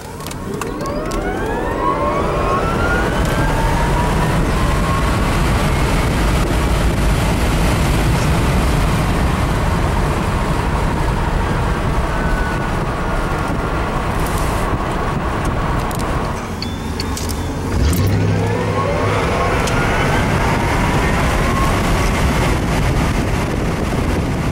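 Tesla Roadster 2.0's electric motor whining up in pitch as the car accelerates hard from a standstill, over loud tyre and wind noise. About sixteen seconds in it eases off briefly, then a second rising whine follows as it accelerates again.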